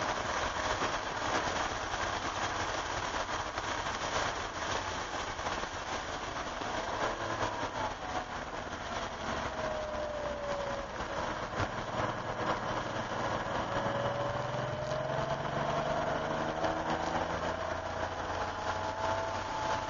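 Inside the cabin of a 1988 Porsche 911 at speed on a wet track: a steady rush of water spray and wind over the air-cooled flat-six. The engine note falls as the car slows and shifts down for a slow corner, then rises again as it accelerates out.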